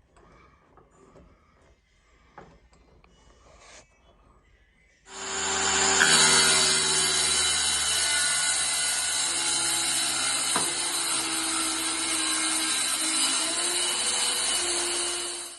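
Faint small knocks and clicks. Then, about five seconds in, a power tool starts up and runs loudly and steadily while cutting into the wooden kitchen worktop, and cuts off abruptly at the end.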